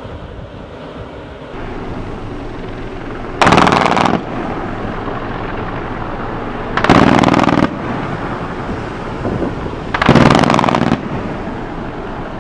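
Three bursts of automatic machine-gun fire from a ship-mounted gun, each lasting just under a second, a few seconds apart, over steady wind and ship noise.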